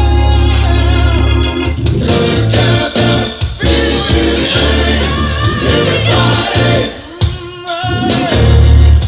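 Music with singing over an organ-like keyboard and a heavy bass line, played through a pair of bi-amped hi-fi speakers as a listening test. The music dips briefly about seven seconds in.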